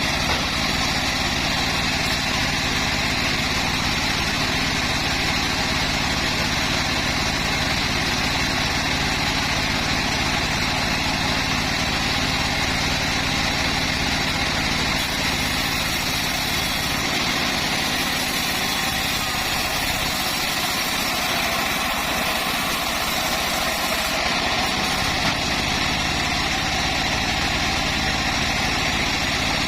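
Engine-driven home-built bandsaw mill running steadily, cutting acacia wood, with a slight change in its sound between about 17 and 24 seconds in.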